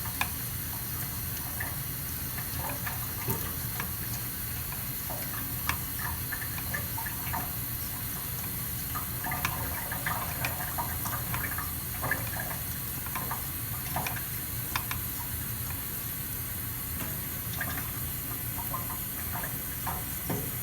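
Koraat straight razor being honed on a wet 5K waterstone: repeated, irregular wet scraping strokes of the blade across the stone.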